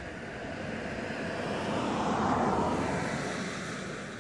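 A vehicle passing by: a rushing noise that swells to a peak about two seconds in, then fades.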